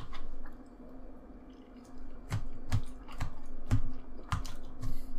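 Metal fork clicking and scraping in a black plastic takeout tray while picking up food: a run of short clicks and taps, a few a second, from about two seconds in.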